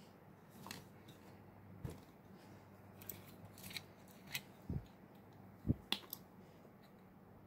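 Scattered light clicks and taps with a few soft low thumps as a glass liqueur bottle is handled on a tabletop.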